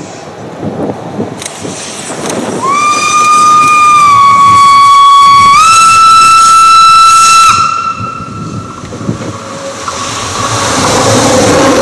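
Steam locomotive whistle blowing one long blast of about five seconds, dipping slightly and then stepping up in pitch partway through, over the rumble of a moving train.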